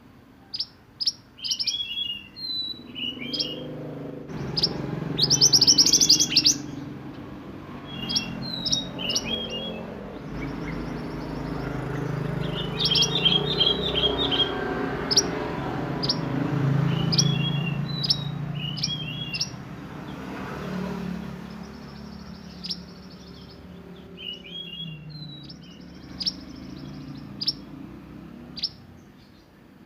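Male burung mantenan singing in the "roll nembak" style: sharp, piercing chirps and quick rolling trills repeated throughout, with a dense burst of song about five seconds in. A steady low rumble runs underneath.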